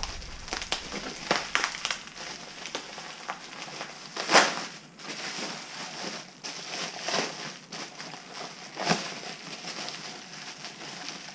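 Packing material crinkling and rustling in irregular bursts as it is cut and pulled away from an exhaust tip. The loudest crunches come about four and nine seconds in.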